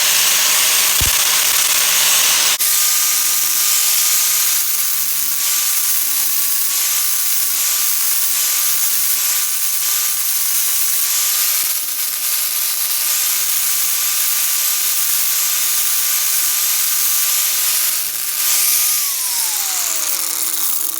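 Electric grinder grinding down a fresh MIG weld on a thin steel bandsaw blade: a loud, steady hiss of the abrasive on the steel over the motor's whine. Near the end the whine falls in pitch as the grinder spins down.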